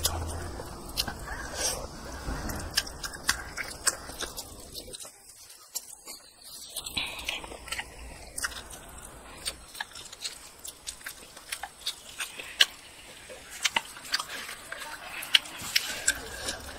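Close-miked chewing and biting of a mouthful of rice and cooked chicken head: many sharp wet clicks and smacks, briefly quieter about five seconds in.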